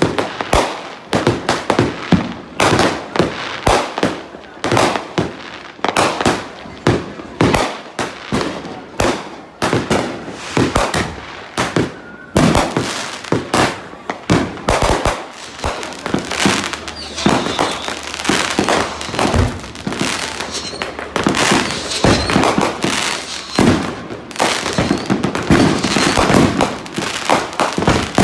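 Fireworks and firecrackers going off non-stop all around: a dense run of sharp bangs and pops, several a second, overlapping one another.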